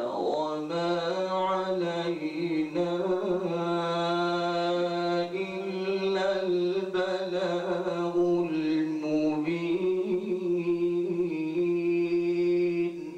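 A man's voice in melodic Quran recitation (tilawat), drawing out long held notes at a nearly steady pitch with small turns and ornaments. The phrase stops near the end.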